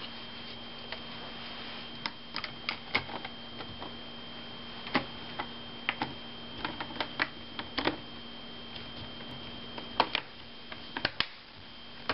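The plastic cover around an HP Pavilion DV6 laptop's screen being pressed back into place, its clips snapping in as a string of irregular sharp clicks and taps.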